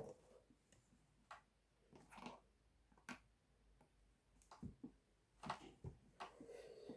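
Faint, scattered clicks and knocks of a light stand's parts being handled and fitted together during assembly.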